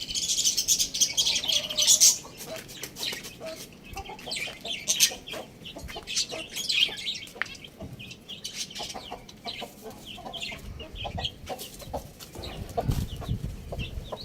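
Chickens clucking amid many short, high chirps from small birds, with a run of low thuds near the end.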